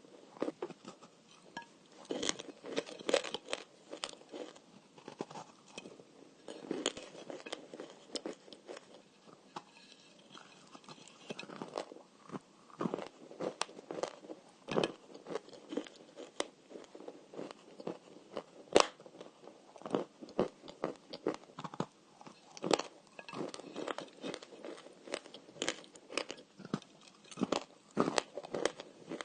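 Dry, crumbly edible clay of the 'dry shortbread' kind being bitten and chewed: irregular sharp crunches and crackles, several a second, throughout.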